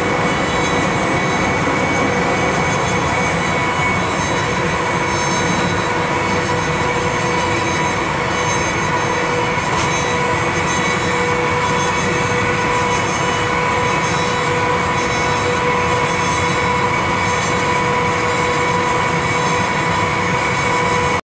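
Steady running noise of a slow-moving Amtrak passenger train heard from inside the car, wheels rolling on the rails, with a steady high whine held over it. It cuts off suddenly at the very end.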